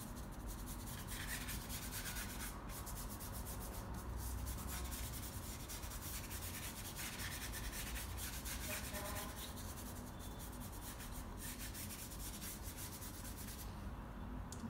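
Paintbrush rubbing over canvas paper as paint is stroked on in short dark markings.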